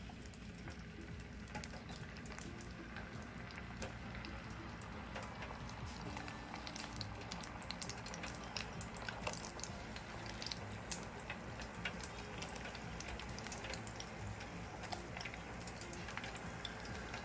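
Potato sticks deep-frying in hot oil in an electric deep fryer: steady bubbling with many scattered crackles and pops, growing busier after a few seconds.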